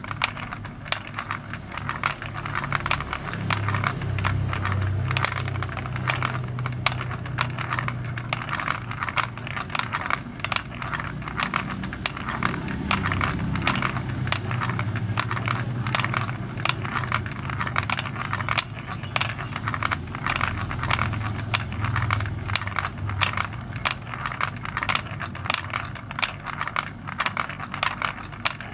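Plastic balls rolling down a plastic block-built marble run track: a low, steady rolling sound with a rapid, uneven patter of clicks and clacks as they run over the track joints and knock against the pieces and each other.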